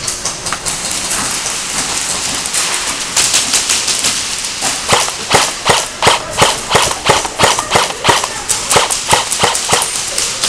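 A quick, uneven run of sharp clacks and knocks, about three or four a second, starting about three seconds in and loudest in the second half.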